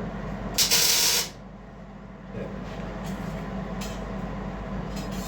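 A MIG welder laying a single tack weld: a short sizzling burst of under a second, about half a second in. A steady low hum and a few light clicks follow.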